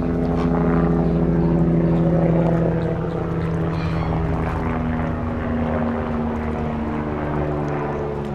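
Airplane flying overhead, a steady engine drone whose pitch drops a little about halfway through.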